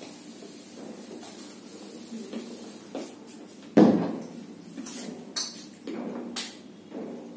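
Whiteboard duster rubbing across a whiteboard as it is wiped clean. A loud knock a little under four seconds in is followed by several sharp clicks and taps.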